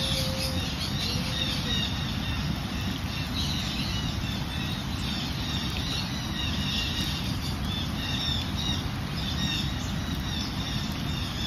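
Steady rushing of a waterfall in flood after heavy rain, a noise she calls very loud, with birds chirping over it throughout.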